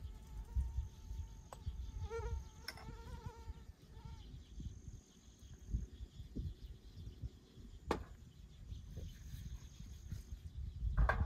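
A fly buzzing close by, its pitch wavering, fading out about four seconds in, over a low rumble. A sharp click comes about eight seconds in.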